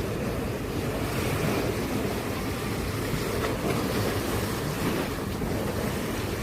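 A steady rushing noise, heaviest in the low end, with no clear strikes or tones.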